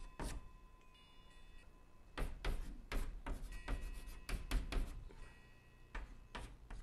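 Chalk tapping and scraping on a blackboard as characters are written: a quick run of short strokes, thickest from about two to five seconds in.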